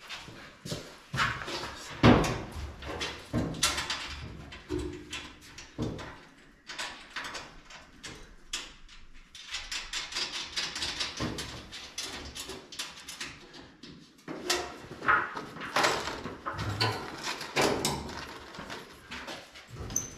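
Irregular knocks, clanks and scraping of hand work in a shop, with one sharp knock about two seconds in.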